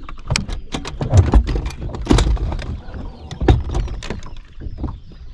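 Knocks, clicks and clunks of gear being handled on a bass boat's front deck, with heavier thumps about one, two and three and a half seconds in.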